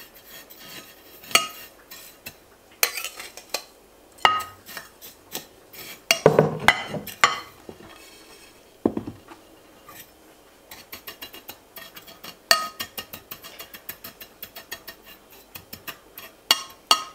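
Metal spoon scraping and clinking against a glass baking dish while spreading dry toasted shredded kadayıf pastry, with scattered taps and a rustle of the pastry about halfway through. In the second half the clicks come in a quick run as the spoon levels the layer.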